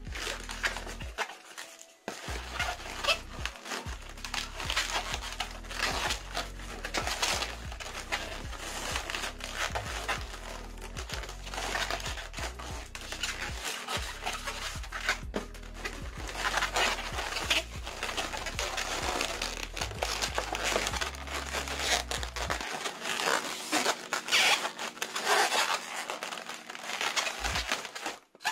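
Long latex modelling balloons being twisted and handled, giving irregular rubbery squeaks and crinkles, over background music that stops near the end.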